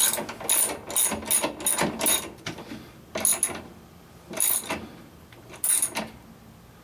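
Socket ratchet wrench clicking in short strokes, about nine bursts with pauses between, as the washer agitator's hold-down screw is drawn snug; the clicking stops about six seconds in.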